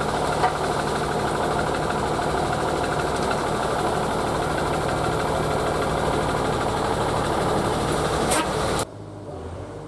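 Heavy diesel engine running steadily. Near the end it cuts off abruptly to a much quieter engine hum.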